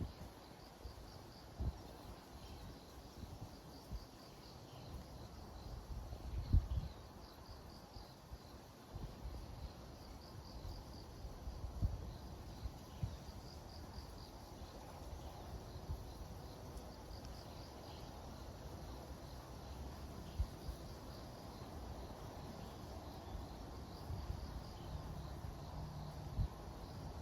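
Insects chirping in a steady pulsed, high-pitched trill that comes in repeated clusters, with irregular low rumbles and thumps of wind on the microphone that are the loudest sounds.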